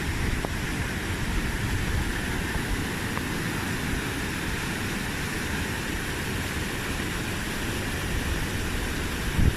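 Floodwater rushing in a steady, unbroken noise with a heavy low rumble and a hiss above it.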